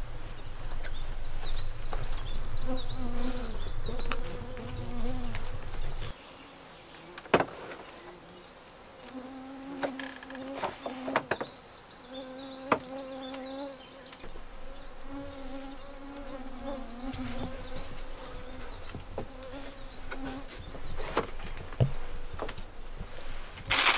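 Flying insects buzzing close by, their hum wavering in pitch and coming and going. A low rumble in the first six seconds cuts off suddenly, and there are a few sharp knocks.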